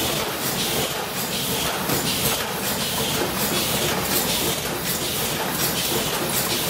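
Paper cup making machine running at its rated 80 cups a minute: a steady mechanical clatter with a regular hissing pulse about one and a half times a second, one per cup cycle.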